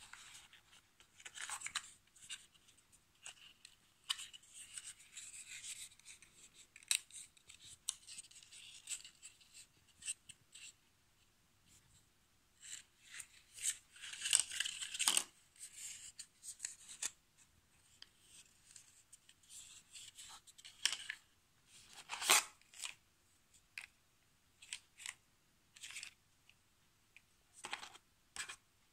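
Cardboard box and inserts of a Samsung Galaxy Note 10+ being handled and unpacked: irregular rustling and scraping, with scattered light clicks and knocks, the sharpest about two-thirds of the way through.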